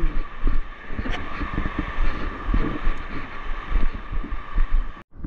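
Wind buffeting the microphone over the steady hiss of surf breaking on rocks. It cuts off suddenly near the end.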